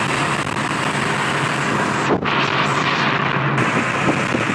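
Heavy wind noise on a phone microphone inside a car at highway speed, mixed with road noise; the sound drops out sharply for a moment about two seconds in.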